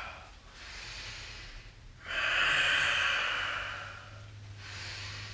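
A man's deep yoga breathing: a softer breath, then a long, loud exhale starting about two seconds in and lasting nearly two seconds, then a softer breath again near the end.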